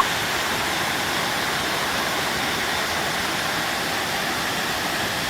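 Waterfall rushing steadily, an unbroken wash of falling water.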